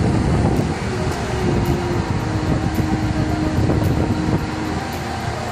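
Steady rumble of a mobile crane's engine running, mixed with wind buffeting the microphone. A steady whine joins from about one and a half seconds in until past four seconds.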